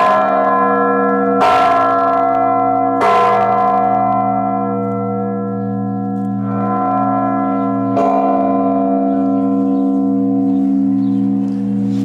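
Large bronze blagovest church bell of about two tonnes, struck by its rope-pulled clapper. Three strokes come about a second and a half apart, then after a pause a lighter stroke and one more. Each stroke rings on in a deep, long hum under bright overtones.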